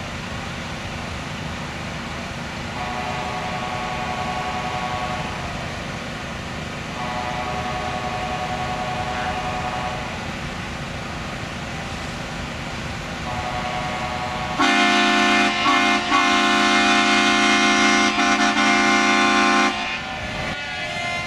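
Truck air horns sounding over a steady background rumble: several shorter, quieter multi-note blasts, then about two-thirds of the way in one loud chord-like blast lasting about five seconds.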